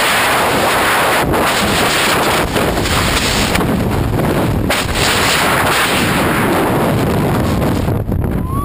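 Heavy wind roar buffeting the microphone, the kind heard on a skydiver's camera at the aircraft door or in freefall. Near the end a whistling tone starts to slide in pitch.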